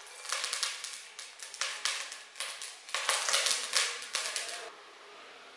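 Thin layer of oil crackling and sizzling in a hot cast iron Dutch oven while a silicone brush spreads it, the pot being seasoned. The crackle is dense and irregular and stops suddenly about four and a half seconds in.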